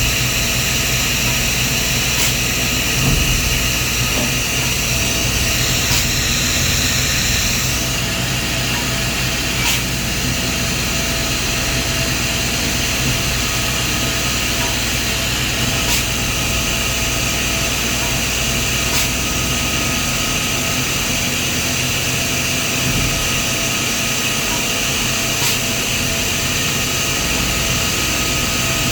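CNC milling machine running an engraving job: a steady mechanical hum and whine with a high hiss, and a few faint clicks. The high hiss eases off about eight seconds in.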